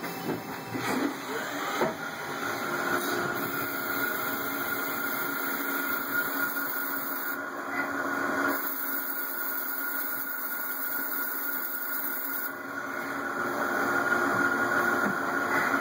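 Haas SL-30 Big Bore CNC lathe running with a steady whine over a hiss, a few knocks in the first two seconds, getting louder from about thirteen seconds in.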